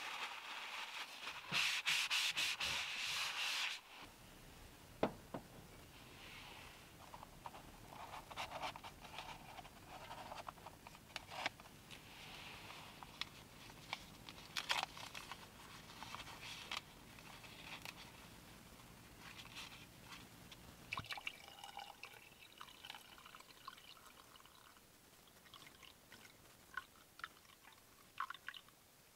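Paper towel rubbing over a wooden cutting board for the first few seconds. Then a low steady hum from the portable gas stove's burner, with scattered small handling clicks, stops about 21 s in. Hot water is then poured from a kettle into a ceramic mug.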